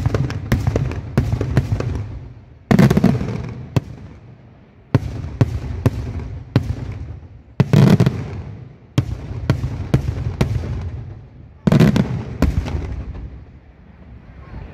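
Daylight fireworks display: aerial shells bursting in rapid volleys of sharp bangs. Heavier booming salvos come about three seconds in, near eight seconds and just before twelve seconds, and the firing tails off near the end.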